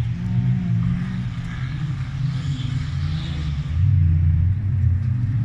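Engines of old wreck-race cars running and revving on a dirt track: a low rumble whose pitch rises and falls, growing louder nearly four seconds in.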